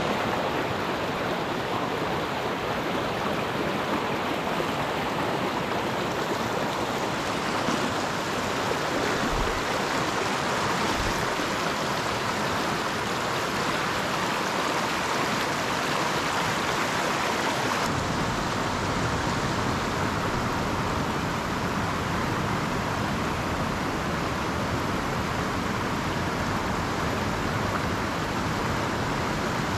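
Small rocky stream rushing and splashing over riffles and around boulders, a steady even rush of water, slightly fuller and deeper from a little past halfway through.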